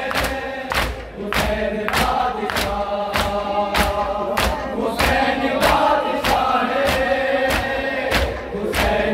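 A group of men chanting a noha together, sung lament in unison, kept in time by sharp, even chest-beating matam strokes, about three strokes every two seconds.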